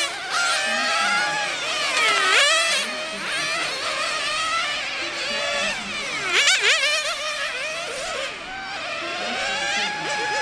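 Several 1/10 scale nitro RC touring cars racing, their small two-stroke nitro engines giving a high, buzzing whine. Pitch and loudness swell and then fall as the cars pass, with bunches of passes about two seconds in and again about six seconds in.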